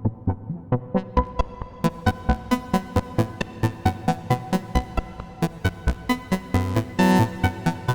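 Modular synthesizer: oscillators patched through a Behringer 2500 Filtamp 1006 filter and amplifier module, playing a fast sequence of short plucked notes, about five a second. The filter opens and the notes turn much brighter about two seconds in, with a longer sustained note near the end.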